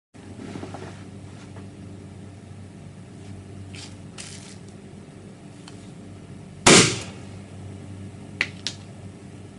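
A 40 mm airsoft Moscart gas shell firing: a single sharp, very loud burst of released gas about two-thirds of the way through that dies away within a fraction of a second. Two quick sharp clicks follow as the metal shell is handled, over a steady low hum.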